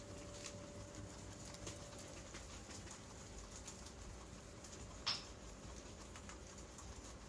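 Guinea pig chewing dry corn husk: a run of small crisp crunching and rustling clicks, with one brief louder sound about five seconds in.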